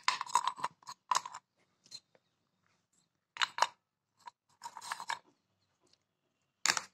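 Pieces of baked clay crunching as they are bitten and chewed, in several separate bursts with short pauses between them, along with clay shards scraping and clinking in a clay cup as they are picked out.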